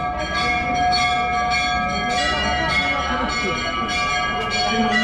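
Hindu temple bells ringing, struck over and over in quick succession so the metallic tones overlap into a continuous clangour.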